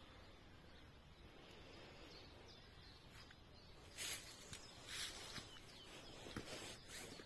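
Faint countryside outdoor ambience, with a few short rustling noises about four and five seconds in and scattered small clicks after them.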